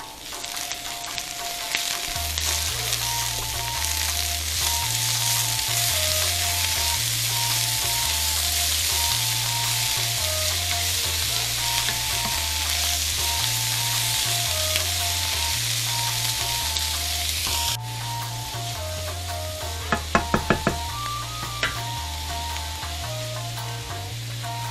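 Cabbage, bean sprouts, carrot and tuna sizzling as they are stir-fried in a frying pan with a wooden spatula; the sizzle drops sharply about 18 seconds in, and a few quick knocks follow a couple of seconds later. Background music with a steady bass line plays throughout.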